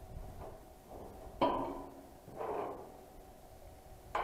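Metallic knocks and clanks from a large rusty steel sheet being handled, each ringing on briefly. The loudest comes about a second and a half in, a softer one follows, and another sharp one comes at the very end.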